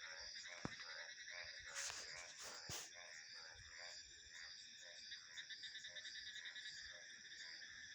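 Frogs calling: short repeated croaks, about two a second at first, then quicker and softer, over a steady high trilling of crickets and other insects. Two sharp clicks come in the first few seconds.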